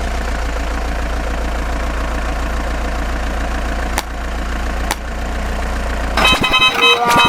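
Cartoon vehicle engine sound effect running steadily with a low rumble and two brief clicks. About six seconds in it gives way to short pitched toots like a vehicle horn.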